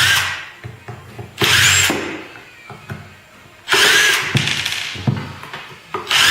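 Power drill-driver running in short bursts of about a second each, four times, as the generator's casing bolts are backed out.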